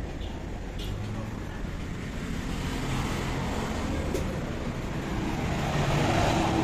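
Road traffic going by, a steady noise that swells near the end as a vehicle passes close.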